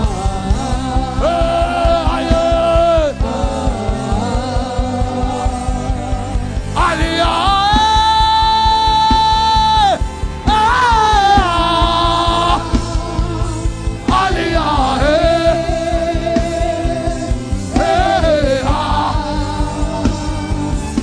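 Gospel music: a voice singing long, drawn-out notes over a steady beat and backing music, with one note held for about three seconds around the middle.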